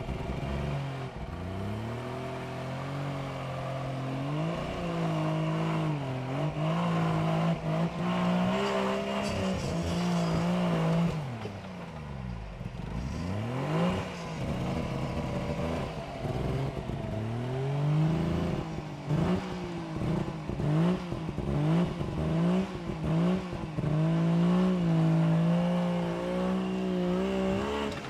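Suzuki 4x4's engine revving up and down under load as it crawls up a steep rocky climb. The revs fall low for a moment near the middle, then come in a run of short quick blips and finally hold high near the end.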